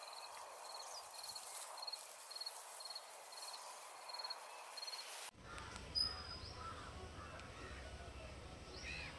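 Outdoor nature ambience: a short, high chirp repeats about twice a second over a soft hiss. About five seconds in the sound changes suddenly to a steady low rumble with scattered bird calls.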